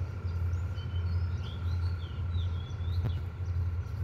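A small bird chirping a quick run of short rising and falling notes, over a steady low hum, with a single sharp click about three seconds in.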